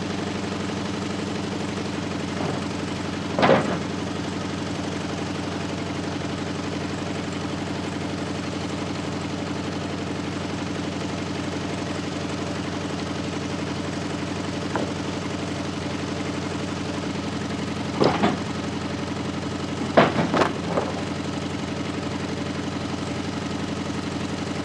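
Gas engine of a portable bandsaw sawmill running steadily, with a few sharp knocks, two of them close together near the end. The owner says the mill's engine is running poorly and needs maintenance.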